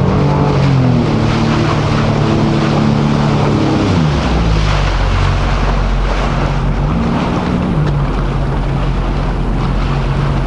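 Jet ski engine running with wind on the microphone. The revs rise near the start, drop back about four seconds in, swell briefly once more a few seconds later, then settle to a steady lower note.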